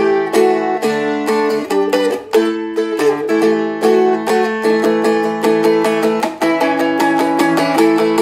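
Seagull Merlin M4, a four-string acoustic dulcimer-style guitar, strummed in a quick, even rhythm, changing chords every second or two.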